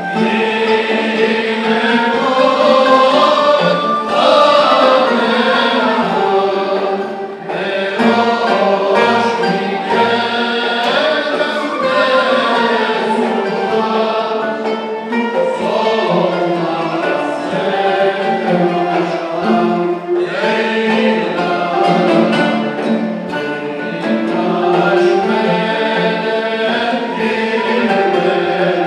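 Mixed choir singing a Sephardic synagogue hymn in Turkish makam style, accompanied by traditional Turkish instruments, in continuous melodic phrases.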